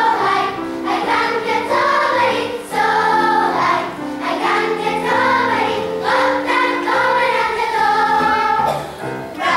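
Children's choir singing with piano accompaniment.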